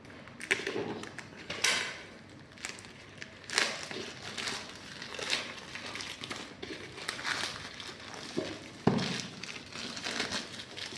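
Packaging being handled and opened: crinkling and rustling wrap, with irregular clicks and knocks, the loudest about nine seconds in.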